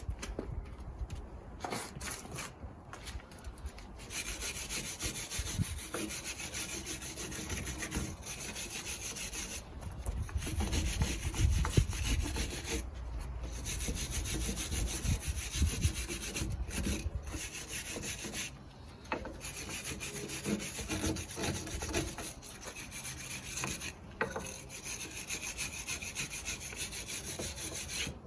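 Hand wire brush scrubbing rust and corrosion off a wheel-mounting surface, a steady scratchy scraping broken by a few short pauses.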